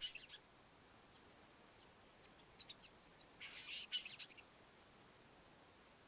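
Cape sugarbird singing its grating song: faint, scattered high chips and clicks, with one harsh, grating burst lasting about a second, about three and a half seconds in.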